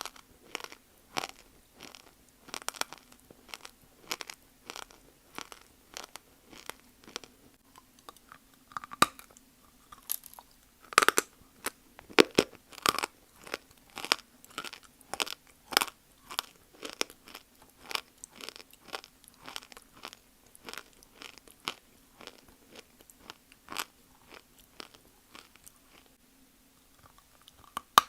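Dry Multani mitti (Fuller's earth clay) being bitten and chewed: a steady run of sharp, crunchy bites, about two a second, loudest around the middle, over a faint steady hum.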